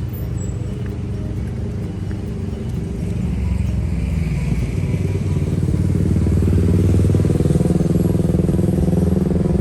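A motor vehicle's engine running close by, its low steady drone growing louder from about a third of the way in as it draws nearer.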